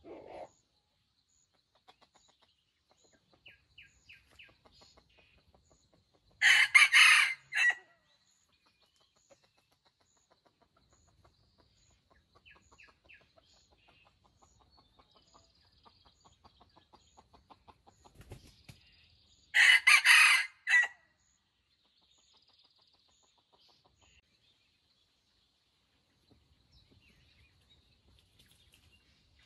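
Junglefowl rooster crowing twice, two short, choppy crows about thirteen seconds apart, with faint clucks in between.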